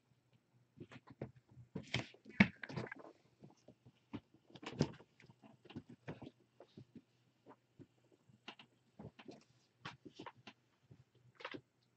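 Kittens playing and scuffling on a hard floor: scattered light taps, clicks and knocks at an irregular pace, the sharpest about two and a half and five seconds in, over a faint steady hum.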